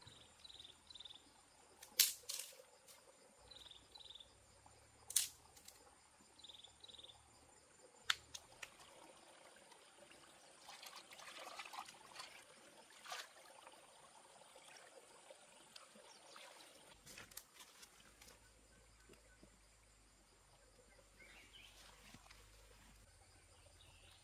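Water splashing and pouring in a bowl as hands rinse something in it, loudest from about ten to thirteen seconds in. Earlier, a few sharp clicks and short high three-note chirps that repeat three times.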